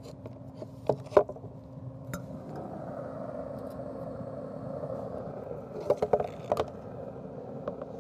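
Scattered metal clicks and scrapes as a steelhead fillet is laid onto the grate of a Traeger Ranger pellet grill. Under them runs a steady hum and a rushing noise that swells a couple of seconds in.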